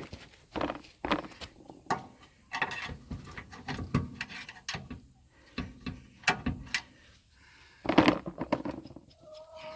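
Irregular knocks, clicks and scrapes of hand work on the car, as tools and metal parts are handled. The loudest clatter comes about eight seconds in.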